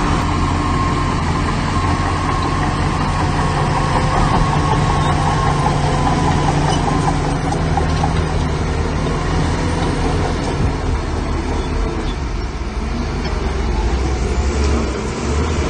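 Heavy diesel engines of earthmoving machinery running steadily, with a faint whine that fades out about six seconds in.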